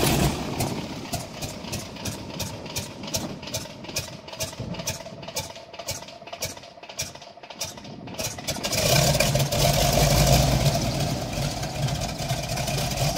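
Grumman Ag-Cat biplane's radial engine cold starting: the starter turns it over slowly with a steady whine and about three regular chuffs a second, then about eight seconds in the engine catches and runs, much louder and continuous.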